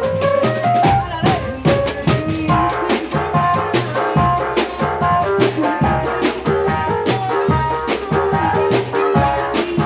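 Live band music: a melody line over a steady, driving drum beat.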